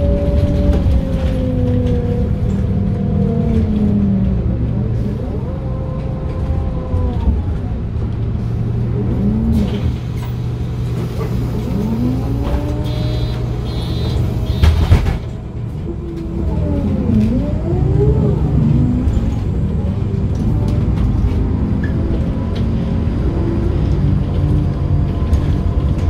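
Ride inside a 2009 MAN NM 243 midibus: its diesel engine and ZF Ecomat automatic gearbox whining, the pitch sliding down as the bus slows, then rising and dropping several times through the gear changes as it pulls away. A loud thump about fifteen seconds in.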